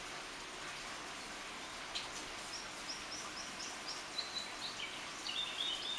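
Steady rain hiss with an occasional sharp drip close by. From about two and a half seconds in, a songbird sings a run of short, quickly repeated notes that step down in pitch toward the end.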